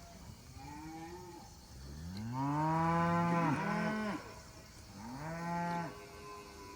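Murray Grey cattle mooing: three calls, a short quiet one, then a long loud moo that rises and falls in pitch, then a shorter one.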